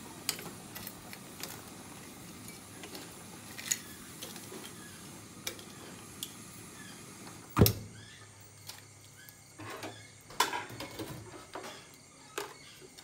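Metal tongs clicking and knocking against an aluminium cooking pot and shrimp shells as boiled shrimp are turned, with one loud knock about halfway through. Scattered small clicks come between.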